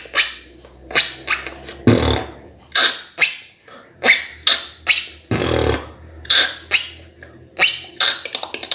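Beatboxing: a rhythmic beat of sharp mouth-made percussion strokes, two or three a second, with two longer low hums, mixed with the high-pitched 'mouse squeak' zipper, an inward-breath squeak drawn through a small gap at one side of tightly pressed lips.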